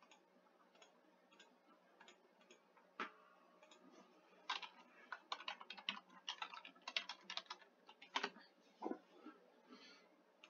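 Quiet computer keyboard typing: a few single clicks, then a quick irregular run of keystrokes lasting about four seconds, then a couple more clicks.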